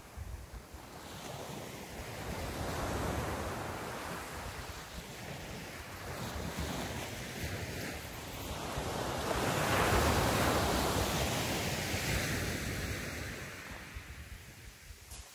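Small sea waves breaking and washing up the beach. The surf swells and ebbs, loudest about ten seconds in.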